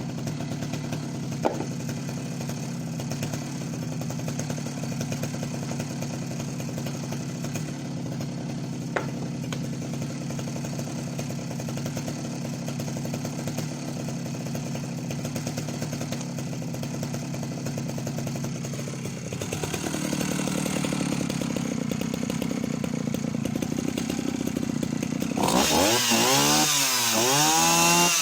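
Husqvarna L65 65cc two-stroke chainsaw cutting wood, running at a steady, even pitch for most of the time. About 19 seconds in the note shifts, and in the last few seconds the revs climb sharply, rising and falling.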